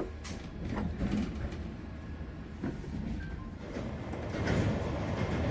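Mumbai Rajdhani's Tejas coaches running at speed: a steady rumble of wheels on track with a few sharp clicks, growing louder about two-thirds of the way through.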